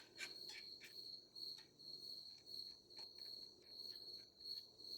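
Faint light scraping and ticking of a metal Allen wrench spreading epoxy inside a 3D-printed plastic RC car body. Under it runs a steady high, pulsing chirp like a cricket.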